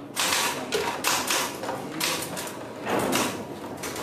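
Electric typewriter clattering in three bursts of rapid typing, each about a second long.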